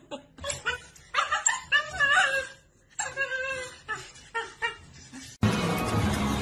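A dog whining and yipping in short pitched calls. Music starts suddenly about five seconds in.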